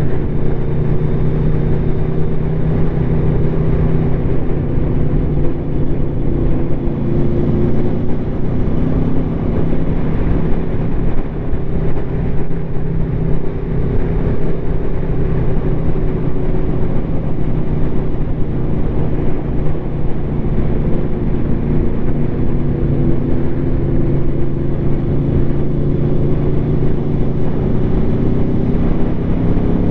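Aprilia Tuono V4 motorcycle engine through an SC Project SC1-R carbon slip-on exhaust, running at a fairly steady cruise, its pitch rising a little near the end. Wind noise on the microphone rumbles underneath.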